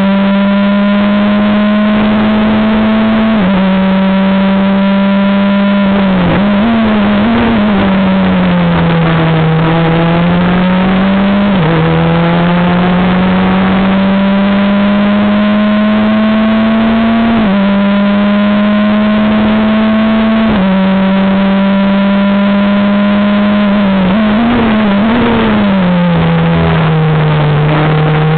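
Onboard sound of a Super FJ formula car's Honda 1.5-litre four-cylinder engine at racing speed: the note climbs slowly in each gear and drops sharply at upshifts. About six seconds in and again near the end it blips and falls under braking and downshifting, then climbs again, over wind and road noise.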